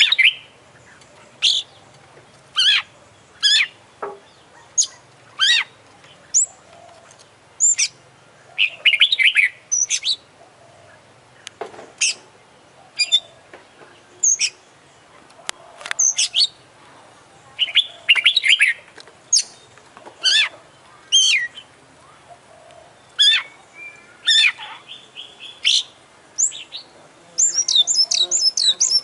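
Oriental magpie-robin (kacer) singing loudly: short, sharp whistled and sweeping notes, mostly about one a second, with denser phrases and mimicked snatches (isian), and a fast chattering run near the end.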